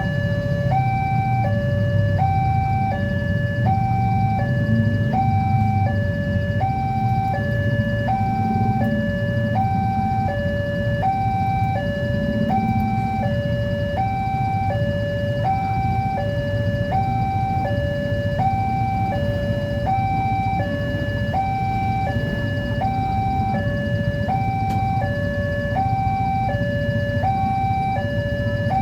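Electronic railway level-crossing warning alarm sounding a steady two-tone high–low chime, switching pitch about every three-quarters of a second, signalling that a train is approaching and the barriers are down. A low rumble runs underneath, stronger in the first half.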